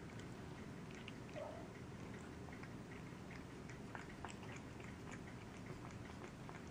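A black domestic shorthair cat chewing raw chicken and licking at its food bowl: faint, irregular small wet clicks over a low steady hum.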